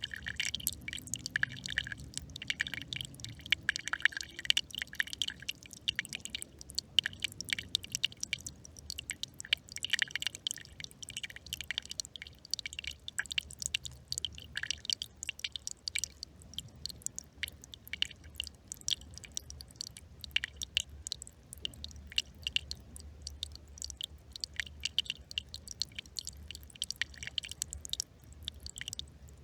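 Small brook trickling: a dense, irregular patter of little splashes and drips.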